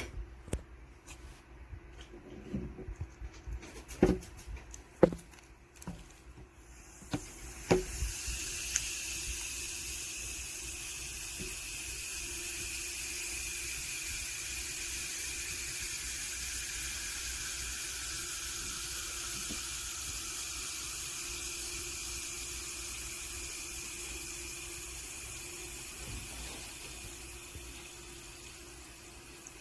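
A few sharp knocks, then from about eight seconds in a steady high fizzing hiss as citric acid reacts with a baking soda solution and releases carbon dioxide bubbles, slowly dying down near the end.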